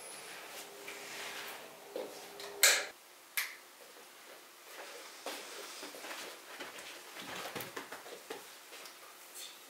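A few sharp clicks and knocks of small objects handled at a bathroom sink, over a faint steady hum, one clack the loudest. After that, soft rustling and light taps as a woman handles a small dog on a blanket-covered sofa.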